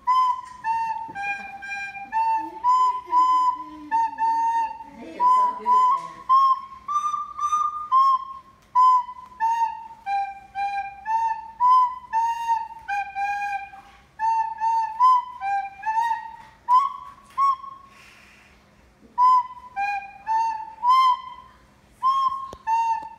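A plastic soprano recorder playing a simple tune one note at a time, with a short break in the playing about eighteen seconds in.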